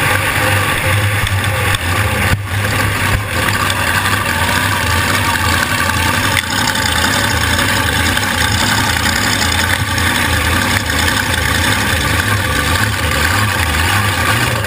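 A drag boat's supercharged alcohol-burning 540 cubic-inch engine running steadily at low speed as the boat idles along, heard from the cockpit.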